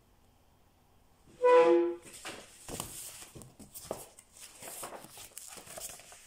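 A short, loud pitched tone about a second and a half in, then paper pages of a picture book being turned and handled: several seconds of irregular rustling with light crackles.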